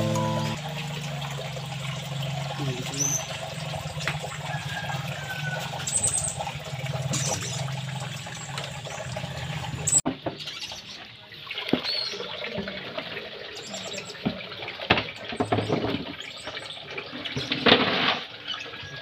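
Live eels squirming in a basin of shallow water: wet splashing and slithering with scattered sharp slaps, loudest near the end. A steady low hum runs under the first half, and the sound changes abruptly at a cut about halfway through.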